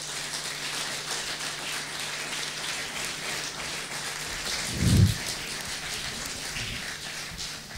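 Audience applauding, a dense patter of clapping that thins out near the end, with a brief low thump close to the microphone about five seconds in.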